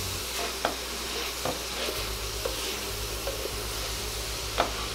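Onion, cauliflower, bacon and sausage sizzling in grease in a cast-iron Dutch oven while a wooden spoon stirs them. A few short sharp clicks come at uneven intervals, and a low hum pulses on and off from about two seconds in.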